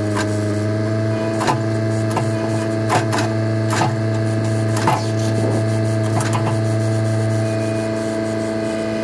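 A machine running at a steady, unchanging pitch with a constant hum. Irregular sharp clicks and light clanks occur over it, roughly every second or so.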